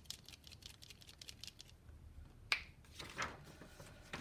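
Molotow acrylic paint pen being shaken, its mixing ball rattling in quick even clicks to get the paint flowing in a pen that isn't writing well; the rattle stops about a second and a half in. A sharp click follows about two and a half seconds in, then a short scrape.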